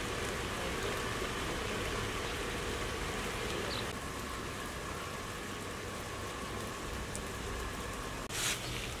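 Steady rain falling outdoors, an even hiss that drops slightly in level about four seconds in. Near the end, a brief sharp noise stands out above the rain.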